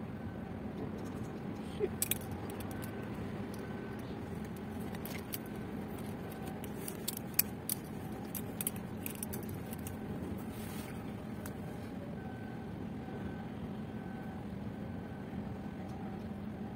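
Steady low outdoor rumble with a faint hum, with scattered light clicks and ticks about two seconds in and again around the middle.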